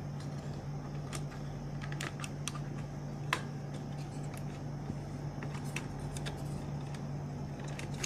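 Scattered small plastic clicks and taps as the RAM slot latches are pressed open and memory modules are handled on a Dell Optiplex 980 motherboard, the sharpest click a little past three seconds in, over a steady low hum.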